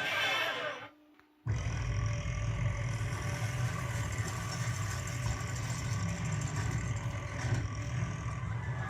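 A long, loud, low burp sound effect that starts abruptly after a brief silence about a second and a half in and rumbles on steadily.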